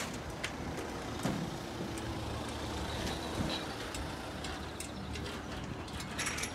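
Steady low outdoor rumble with scattered light clicks, no speech.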